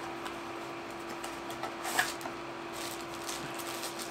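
Small cardboard box and plastic packaging being handled and opened: light clicks and rustles, with a sharper click about two seconds in, over a steady low hum.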